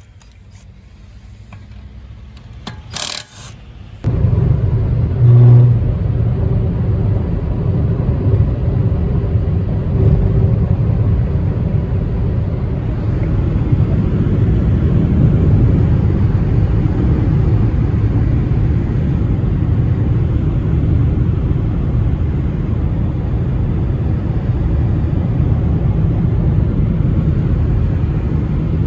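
A brief sharp rustle or knock about three seconds in, then a loud, steady low rumble that starts suddenly about a second later and holds.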